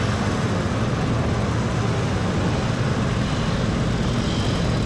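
A large group of small 50cc two-stroke mopeds running together as they ride past, blending into one steady, dense buzz.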